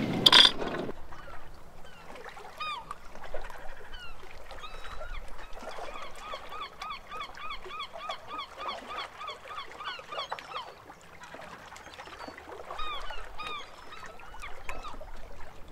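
Birds calling: a rapid series of short arched calls, about four a second, breaking off briefly and starting again near the end. A louder sound fills the first second.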